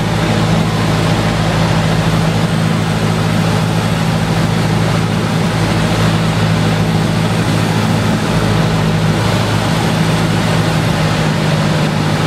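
Cessna 172's piston engine and propeller running steadily on the landing approach, heard inside the cabin as a steady low drone under a rush of wind noise.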